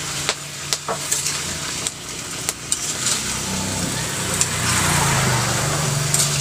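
Vegetables stir-frying in a wok: steady sizzling, with a metal spatula clinking and scraping against the pan many times. A low engine hum from a passing vehicle grows louder in the second half.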